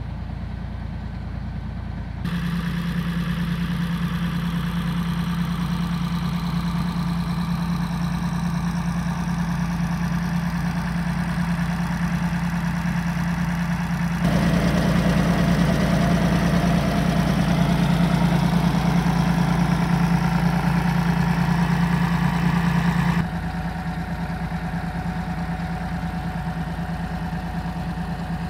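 Tractor engine idling steadily. The level changes abruptly three times: louder about two seconds in, louder again about halfway, and quieter again a few seconds before the end.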